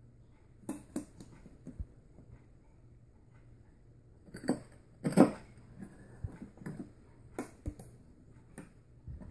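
Handling noise from a clay moxa device and its moxa cup: scattered light clicks, taps and scrapes as the cup and a thin stick are worked by hand, with a louder knock and scrape about five seconds in.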